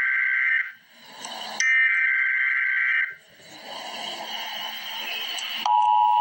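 Emergency Alert System SAME header data bursts: harsh, buzzy electronic screeches, the end of one and then a whole one about a second and a half long, with a short gap between them. After a stretch of hiss, the steady two-tone EAS attention signal starts near the end, announcing that an emergency alert message follows.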